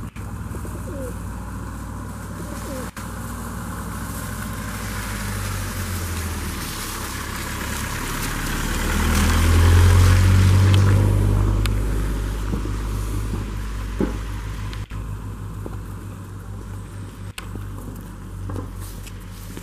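A car driving past on wet paving: engine and tyre noise swell to a peak about halfway through, then fade, over a steady low rumble.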